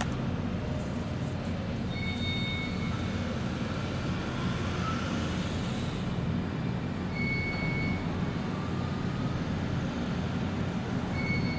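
Steady low engine rumble, with a short electronic beep sounding three times, about every four to five seconds.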